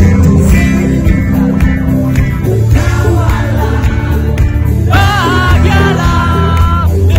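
Loud live band music through a PA system, with a heavy bass beat and a singer's voice over it. The voice is clearest in the second half, where the sung notes waver.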